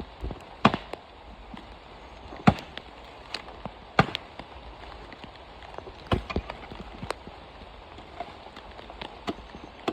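Irregular sharp knocks, about eight in ten seconds, of tools striking and splitting coconut shells, over a steady hiss of rain.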